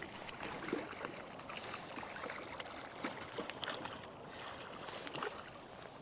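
Water lapping and splashing against a kayak hull, with many small irregular clicks and knocks.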